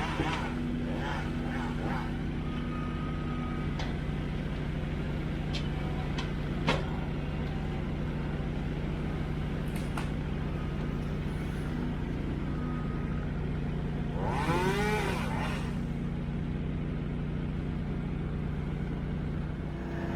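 An engine running steadily at one speed, with a few scattered clicks and knocks. A short voice rises and falls about three quarters of the way through.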